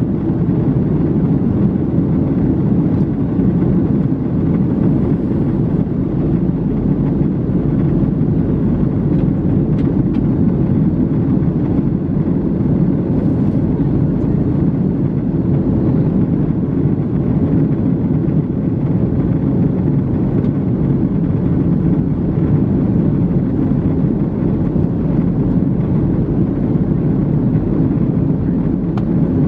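Steady cabin roar of an Airbus A321neo in flight, heard from a window seat: the drone of its Pratt & Whitney geared turbofan engines mixed with airflow over the fuselage, a deep even rumble with a faint steady hum on top.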